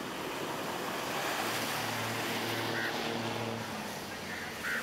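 Steady rush of wind and sea surf, with a faint low hum for a couple of seconds midway and two short high chirps, one of them near the end.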